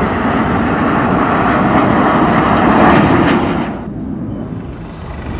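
Jet engines of the Suryakiran team's formation of BAE Hawk trainers passing overhead, a loud steady rush that falls away sharply about three and a half seconds in.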